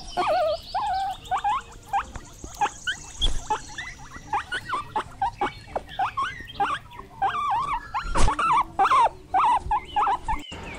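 Guinea pigs squeaking: a rapid run of short, high calls, several a second, some sliding up or down in pitch. A single thump about eight seconds in.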